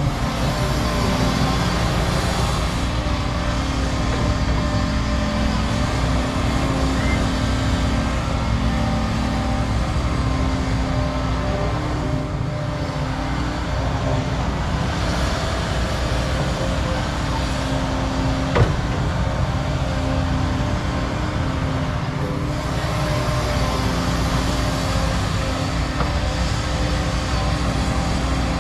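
Large diesel crawler excavators, a Cat 335 and Volvos, working: a steady engine drone with a hydraulic whine that rises and falls slightly as they dig. There is one sharp clank about eighteen seconds in.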